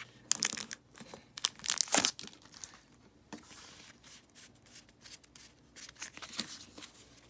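A Pokémon booster pack's foil wrapper being torn open and crinkled. The tearing is loudest in the first two seconds, followed by softer rustles and ticks as the pack is handled.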